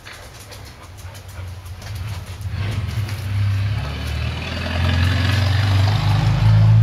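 A motor vehicle's engine, a low steady hum that grows louder throughout, with a rushing hiss joining in about three seconds in.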